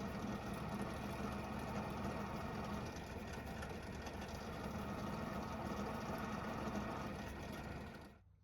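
Drill press motor running steadily, used to round over the edges of diecast toy car wheels; it stops suddenly near the end.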